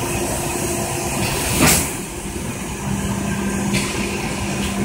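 Inline plastic thermoforming machine running, with a steady mechanical hum and a short, loud burst of hiss about a second and a half in.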